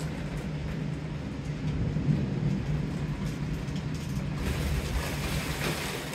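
Thunderstorm: rain hissing steadily over a low rumble, with a steady low hum underneath. The rain hiss swells about four and a half seconds in.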